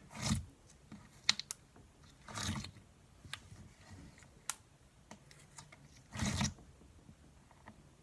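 Butter slime squished and worked by hand: three short squelches and a scatter of sharp little clicks and pops.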